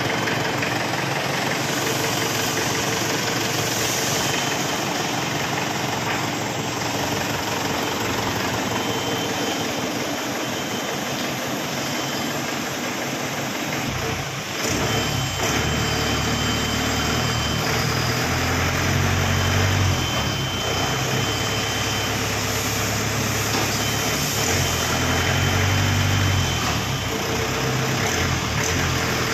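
Mahindra CJ500 jeep engine running at idle. About halfway through the sound changes, and the low engine note then swells and falls a few times.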